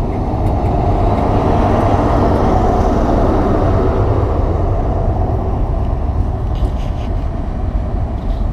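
High Speed Train (InterCity 125) pulling out, its rear Class 43 diesel power car running past close and then drawing away. The engine and wheel noise is loudest about two to four seconds in, then eases off.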